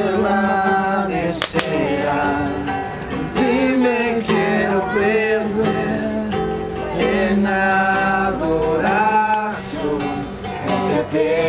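Voices singing a Spanish worship song to a plucked guitar, with long held notes. A brief sharp click about a second and a half in.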